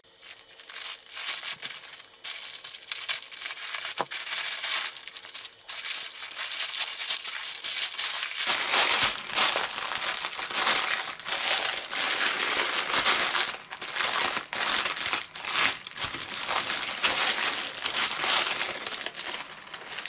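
Plastic packaging crinkling and rustling in the hands: first a grey polyethylene mailer bag being handled and opened, then clear plastic wrap being pulled off a soft knitted item. The crinkling gets fuller and louder about halfway through.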